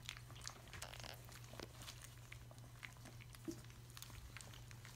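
Cavalier King Charles Spaniel puppies eating soft food from a steel feeding bowl: faint, irregular clicks of chewing and licking.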